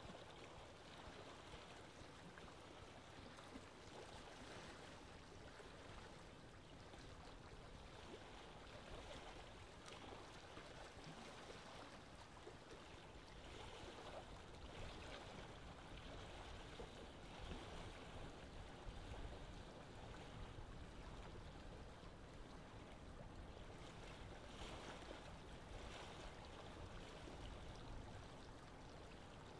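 Near silence: a faint steady hiss of recording noise.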